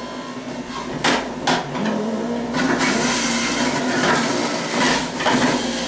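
Electric centrifugal juicer running with a steady motor hum while carrots are pushed down the feed chute with the plunger and shredded. Two sharp knocks come about a second in, then heavier grinding through the second half.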